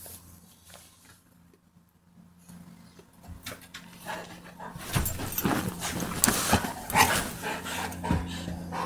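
Two dogs play-fighting. The first few seconds are quiet with small scuffling noises. From about four seconds in come loud, rough growls and snaps that go on to the end.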